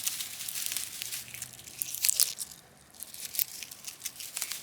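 Dry, dead weeds crunching and crackling in a run of short, irregular crackles, with a brief lull about halfway through.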